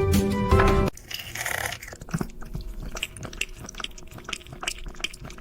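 Background music cuts off about a second in, followed by close-up crunching and chewing: crisp food being bitten and chewed in many short, irregular crackles.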